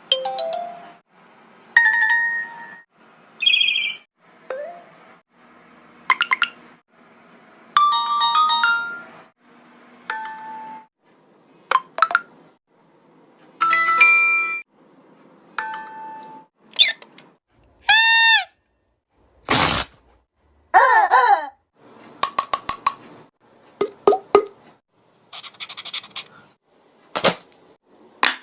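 A rapid run of short, separate sound effects about one a second, each cut off clean: ding- and ringtone-like tones and chimes, a quick run of repeated chirps, then sharper clicks and pops in the last third.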